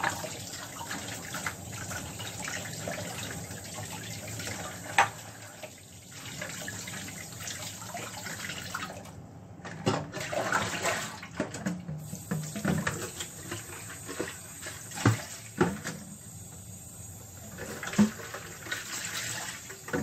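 Kitchen tap running into a plastic basin in a sink as potatoes are scrubbed and washed by hand, with splashing and a few sharp knocks.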